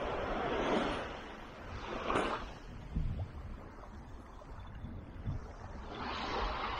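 Small waves washing up a sandy shore, with wind on the microphone. The wash eases after about a second, with a couple of brief knocks, and swells again near the end.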